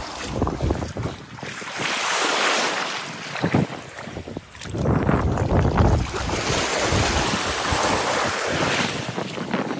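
Wind buffeting the microphone in irregular gusts, over a rushing hiss that rises and falls.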